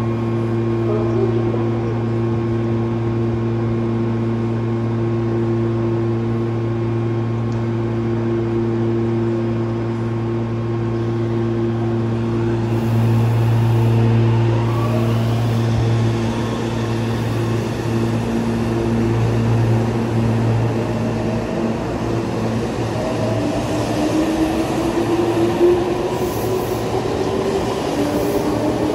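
Meitetsu 2200 series electric train standing at the platform with a steady multi-tone hum from its onboard equipment, then starting to pull away about 23 seconds in, its traction motors giving a whine that rises in pitch as it accelerates.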